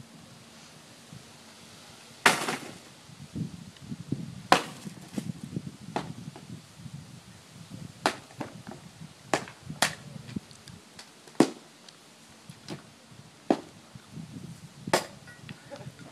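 Axe blows chopping into the broken wooden panels of a smashed large TV cabinet: about nine sharp, irregularly spaced strikes starting about two seconds in, with debris crunching between them.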